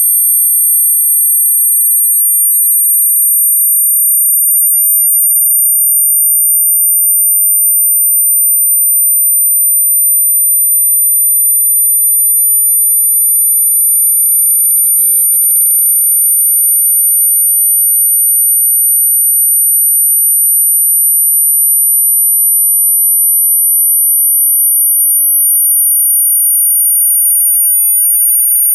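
Two loud, steady, high-pitched electronic sine tones sounding together, the upper one sinking very slightly in pitch: a synthesized loudspeaker test tone.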